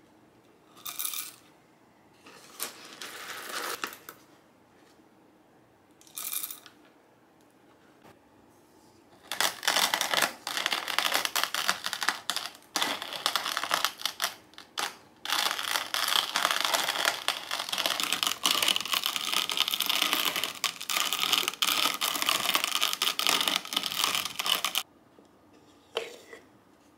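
Crinkling and crackling handling noise: a few short bursts, then a dense stretch of crackling with many small clicks, about fifteen seconds long, that stops suddenly.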